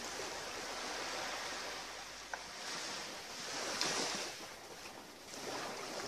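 Small waves lapping and washing on a rocky shore, a steady hiss of water that swells and eases a few times.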